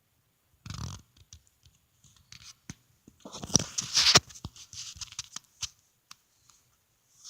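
Rustling and scratching as cats paw at catnip toys still in their packaging, with scattered light clicks and the loudest scrabbling about three and a half to four seconds in.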